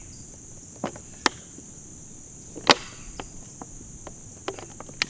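Sharp plastic clicks and knocks, five or six separate ones with the loudest about two and a half seconds in, as a rubber valve stem is forced into the neck of a plastic soda bottle. A steady high insect chirring runs underneath.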